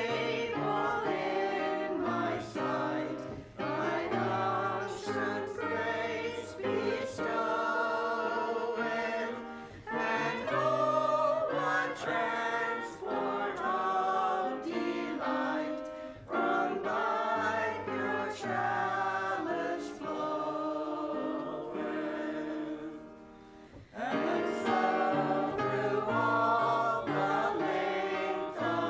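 Church choir singing a hymn, several voices in harmony over sustained low notes, with a brief lull about three quarters of the way through.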